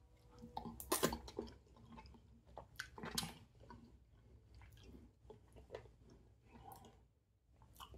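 A person chewing a mouthful of food close to the microphone, with irregular mouth clicks, the loudest about one and three seconds in.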